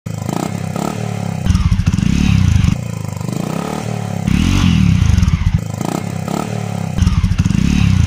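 Single-cylinder motorcycle exhaust idling and being revved, the pitch rising and falling in three revs of about a second each between steadier idle stretches.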